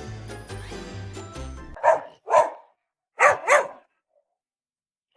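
Background music that cuts off suddenly, then a dog barking four times in two quick pairs.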